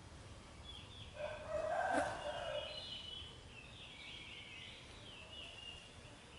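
An animal call about a second in, lasting about a second and a half, with a short click in the middle, followed by several thin, high, wavering chirps.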